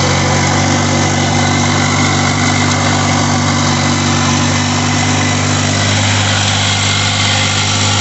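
Farm tractor's diesel engine running steadily, heard from the driver's seat.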